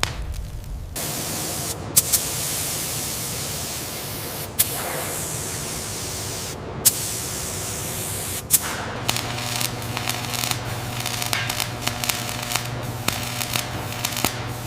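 A steady, spray-like hiss, broken by a few sharp clicks. About nine seconds in it gives way to a low steady machine hum with rapid clicking.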